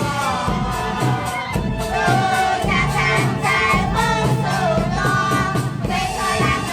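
A group singing a folk toasting song together to a steady beat, as sung while wine is served to guests.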